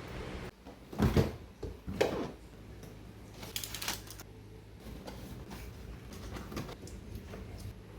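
Objects being handled and set down: two sharp knocks about a second apart, then a brief rustle and a few softer clicks over a low steady hum.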